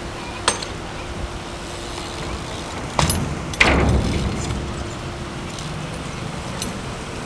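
BMX bike riding on paving: a few sharp clacks and one heavier thud a little over three seconds in, as the wheels come down on the concrete, over a steady hum of city traffic.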